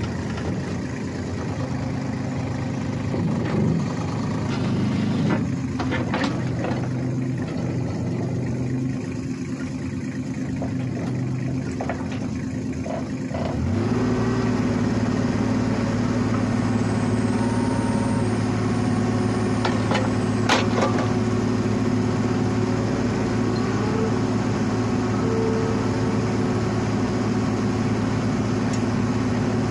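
Kubota U-30-5 compact excavator's diesel engine running, with a few light knocks and clicks over it. About fourteen seconds in the engine speeds up and then runs louder and steady at the higher speed.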